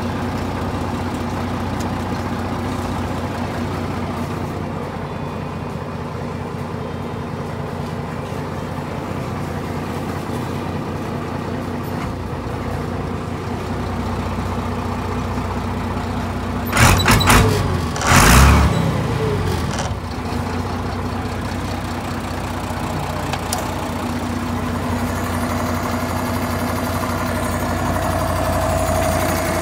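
Tractor engine idling steadily. A couple of loud, short knocking bursts come a little past halfway.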